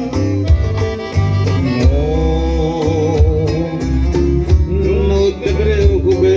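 Live band playing an instrumental passage between sung verses: a wavering lead melody over a strong bass line and a regular drum beat.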